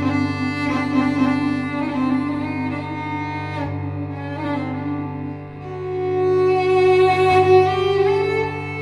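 Solo cello layered by live looping: a bowed melody over a steady low held drone. About halfway through, a new long note swells in and grows louder, then steps up in pitch near the end.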